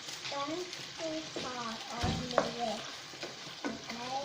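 Chicken and vegetables sizzling in a frying pan as they are stirred, with a few knocks and scrapes of the utensil against the pan, the loudest about two seconds in.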